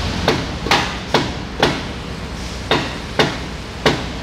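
Hammer blows on metal, about seven sharp ringing knocks at an uneven pace, knocking a stuck rear brake disc loose from the hub of a BMW E36.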